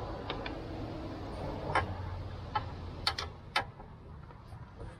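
Irregular sharp plastic clicks as a car's front turn signal bulb socket is twisted counterclockwise and worked out of the back of the headlight housing, several coming close together about three seconds in, over a low steady hum that fades about three seconds in.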